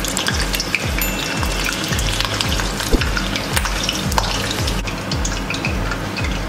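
Hot oil sizzling and crackling in a stainless steel wok as marinated pieces deep-fry and are turned with metal tongs, with a sharp tap of the tongs against the wok about three seconds in. Background music with a steady beat runs underneath.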